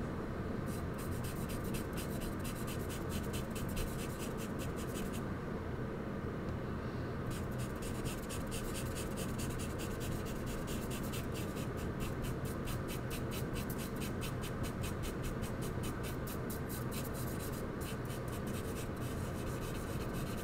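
Charcoal scratching on paper in quick, rhythmic short strokes, several a second, as a portrait face is shaded. The strokes stop for about two seconds around five seconds in, then go on. A steady low hum runs underneath.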